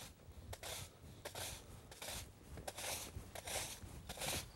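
Faint, short gritty scrapes on a gravel-and-stone yard, about two a second, from footsteps and a yard brush sweeping.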